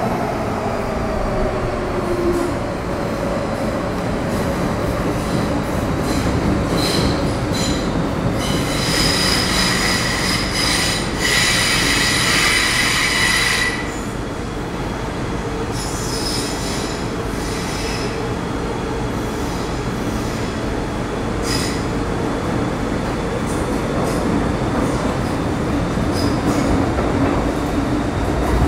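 MTR Metro Cammell M-Train (CM-stock) electric multiple unit running, heard from inside the car: a steady rumble of wheels on rail, with a whine falling in pitch at the start. About eight seconds in, a loud high-pitched wheel squeal of several ringing tones sets in and lasts around five seconds, and shorter squeals follow later.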